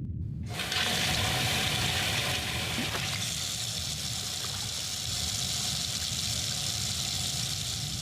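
Steady rushing, hissing noise like running water that starts abruptly about half a second in, over a low rumble.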